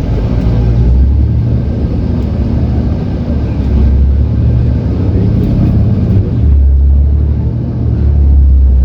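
City bus interior while riding: a steady low engine drone with road noise, swelling louder a few times.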